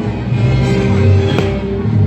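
Music with low sustained notes, and one sharp crack about two-thirds of the way through.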